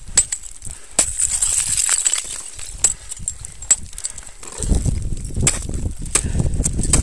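Ice axe picks and crampon points striking hard ice in several sharp blows, about one a second, with a hiss of ice chips around the first two seconds. From about two-thirds of the way in, a low buffeting rumble of wind on the microphone is the loudest sound.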